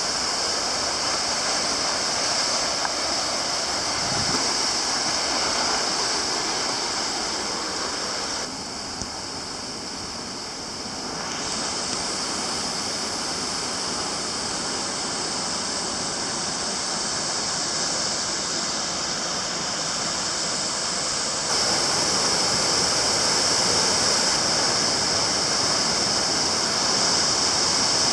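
Mist Falls waterfall, a steady rush of falling water. It dips a little about eight seconds in, then steps up louder about twenty seconds in.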